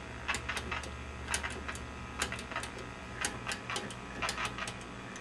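Channel selector on a vintage Motorola TV chassis being turned by hand, clicking through its detents in quick, irregular runs. A steady low hum sits underneath.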